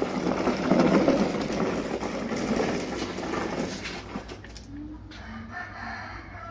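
A rooster crowing faintly over a rough rumbling noise that fades after the first few seconds.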